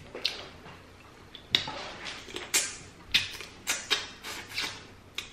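Close-miked mouth sounds of eating boiled crawfish: a run of about ten short smacking sounds, spread over three or four seconds.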